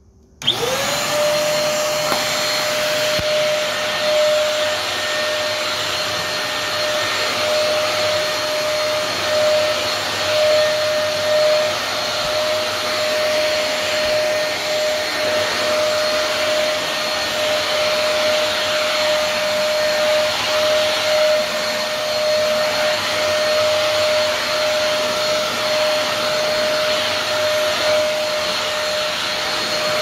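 Philco PAS1450C 1300 W 2-in-1 stick vacuum cleaner switched on about half a second in, its motor spinning up quickly to a steady high whine over a strong rush of air, then running at full power while vacuuming up dirt.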